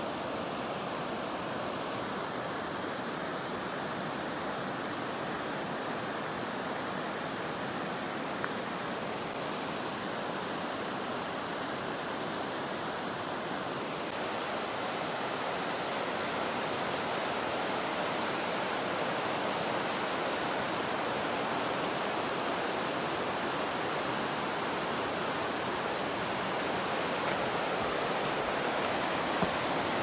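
Steady rush of a fast-flowing river, growing slightly louder about halfway through.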